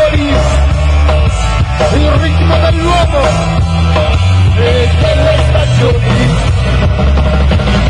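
Live rock band playing loudly: drums, bass, electric guitars and keyboards, with a lead melody line bending in pitch over a steady, heavy bass.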